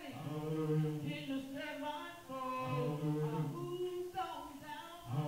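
Unaccompanied hymn singing, a cappella, with long held notes that step from pitch to pitch.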